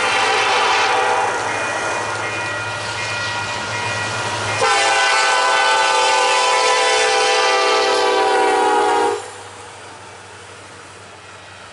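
Union Pacific diesel locomotive horn blowing as the lead units approach and pass. About four and a half seconds in it jumps louder and drops slightly in pitch as the locomotives go by, then cuts off suddenly about nine seconds in, leaving the quieter steady rolling of the double-stack container cars on the rails.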